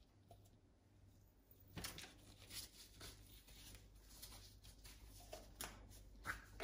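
Faint rustling and light irregular tapping of gloved hands handling an open plastic zip-top bag, over a low steady hum.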